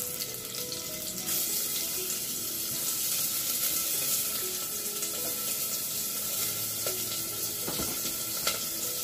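Chopped onion sizzling in a little hot oil in a pressure cooker, a steady hiss, with a couple of light knocks near the end.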